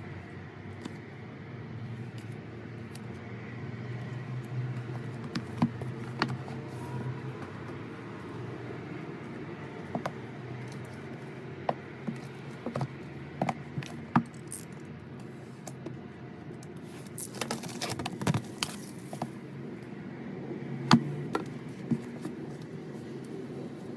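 Album packaging being handled: scattered sharp clicks and taps, with a denser crinkling rustle about three-quarters of the way through, over a steady low hum.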